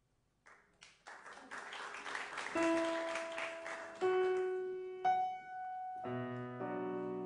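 Grand piano playing alone after a moment of silence: a fast flurry of notes, then a few single held notes, and about six seconds in, full chords with a deep bass.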